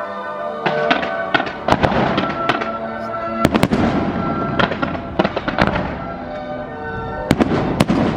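Fireworks going off in a quick string of sharp bangs and crackles, several a second, with a few louder cracks about three and a half seconds in and again near the end. Music plays steadily underneath.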